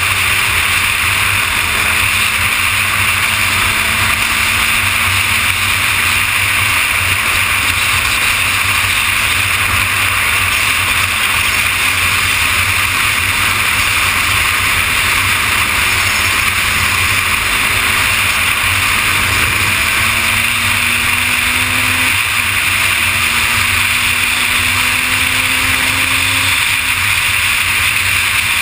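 Heavy wind rush on the camera microphone at freeway speed. Underneath, the Kawasaki ZX-6R's inline-four engine is faintly heard, its pitch creeping up and then dropping back twice in the second half.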